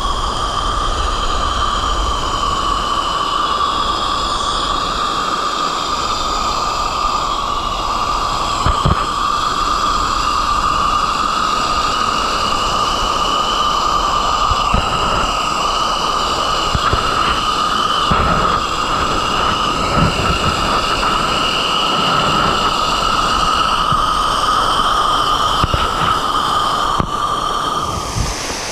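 Small waterfall rushing in a steady loud wash, with a few low thumps from handling or wind on the microphone.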